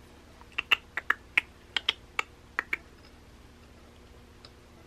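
Steel parts of a 1911 pistol frame clicking and knocking together as they are fitted during reassembly: about ten short, sharp metallic clicks in quick, uneven succession over two seconds, then quiet handling.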